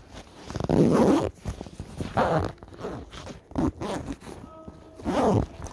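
Close rubbing and rustling at the microphone in four short bursts, about a second and a half apart: the phone handled against clothing.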